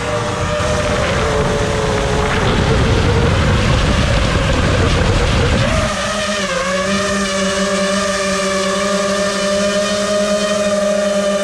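FPV quadcopter's brushless motors whining, the pitch wavering with throttle over a rushing noise. About six seconds in the rushing stops and the whine holds at a steady pitch.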